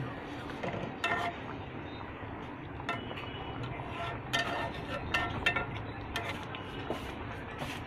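A spatula stirring rui fish curry in an iron karahi, clinking and scraping against the pan about once a second, each clink ringing briefly.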